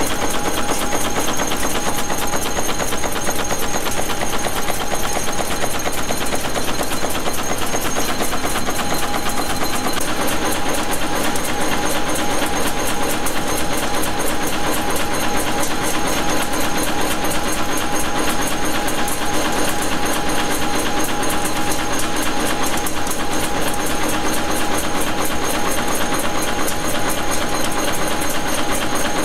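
Manek N-2 wire nail making machine running at speed: a fast, even mechanical clatter from its repeated nail-forming strokes, holding steady throughout.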